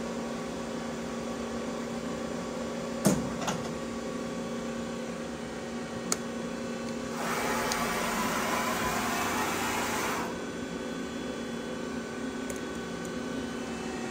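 Steady electrical and mechanical hum of a powered-up Sunfirm CHT 5680 CNC lathe standing with its spindle stopped. A sharp click comes about three seconds in and a lighter one near the middle, and a hiss lasting about three seconds follows.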